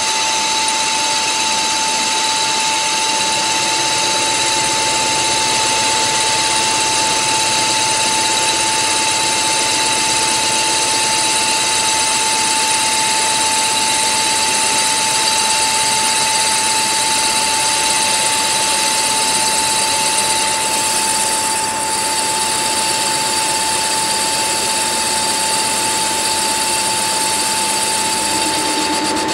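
CNC lathe running and cutting a spinning metal part: a steady machine whine with one constant high tone over an even cutting hiss.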